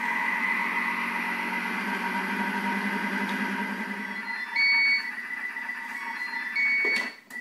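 Thermomix food processor running at speed 3 with its butterfly whisk fitted, stirring and heating choux pastry dough at 100 degrees to cook out the flour: a steady motor whir with a high whine. Near the end two short high beeps sound, and the motor stops.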